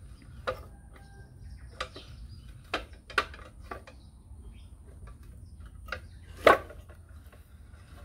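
Metal clanks from a bench vise's sliding T-bar handle knocking against the screw end as the vise screw is turned by hand: about seven separate sharp knocks at uneven intervals, the loudest late on.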